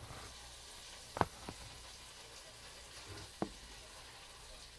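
Phone being handled and set down on a counter: a few short knocks, the loudest about a second in, another just after and one more near three and a half seconds, over a faint steady hiss.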